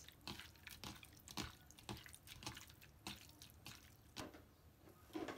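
Fingers tossing sliced raw sea bass in soy sauce in a bowl: faint, irregular wet squelches and small clicks.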